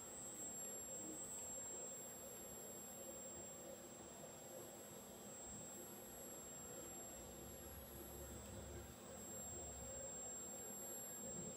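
Faint machine-room sound: a steady high-pitched electrical whine over a low hum, with the low whir of a Fanuc robot arm's servo motors as it is jogged, a little stronger from about seven to nine seconds in.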